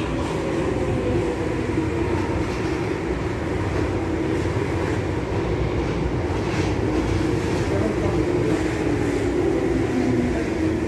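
Vienna U-Bahn U4 train pulling into the platform and passing close by, its wheels rumbling steadily on the rails. A drive whine drifts slowly down in pitch as the train slows.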